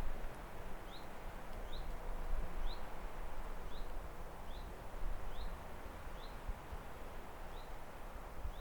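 A bird repeating one short, high, rising chirp about once a second over a steady outdoor background hiss.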